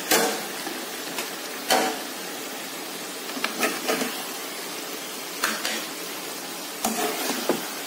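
A spoon knocking and scraping in a cooking pot of karela and chicken curry as it is stirred and scooped, about six short clanks spread unevenly, over a steady sizzling hiss from the pan.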